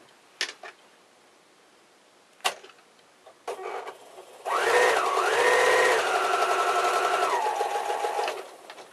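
Electric sewing machine stitching a seam for about four seconds, starting about halfway in, its motor pitch rising, dipping and then stepping down before it stops near the end. A few light clicks come before it.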